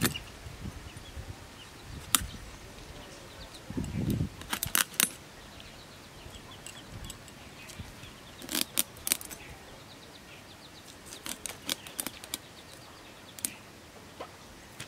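Scales being scraped off a fresh fish against a boti's curved iron blade: bunches of sharp scraping clicks, with a dull knock of handling about four seconds in.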